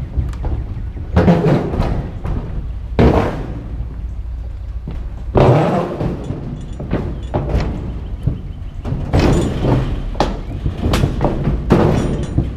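Scrap metal being shifted and set down in a pickup truck bed: a string of irregular thuds and clanks over a steady low rumble.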